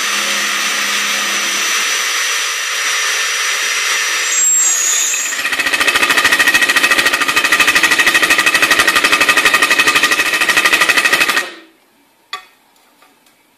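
Electric drill with a step drill bit cutting into a steel plate, a steady whine, then about five seconds in an impact drill takes over, hammering fast and evenly as it drives a stud fastener into the drilled hole. It stops suddenly near the end, followed by one light knock of a steel U channel set on the plate.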